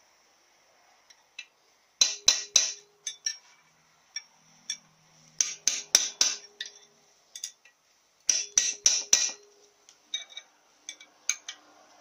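Hammer striking a long drift held against the old bush in a cast iron Powerglide transmission case, tapping the bush out. The taps come in quick runs of three to five sharp metallic strikes with a ringing tone, a couple of seconds apart.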